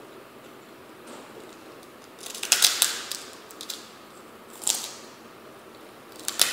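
Crunching bites into a giant kerupuk, an Indonesian fried cracker: a burst of sharp crackling about two seconds in, the loudest, then a shorter crunch near five seconds and another near the end.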